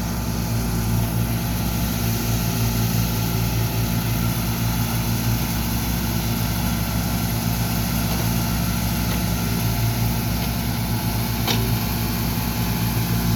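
Track hoe (tracked excavator) diesel engine running steadily, with one short click late on.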